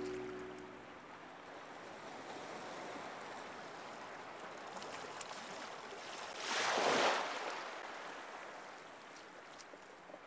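A steady rushing noise, with one louder swell that rises and falls about seven seconds in, after a closing stretch of music fades out at the very start.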